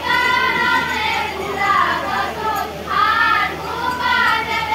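Young female voices singing an Assamese nagara naam devotional chant in long held notes that waver and bend in pitch.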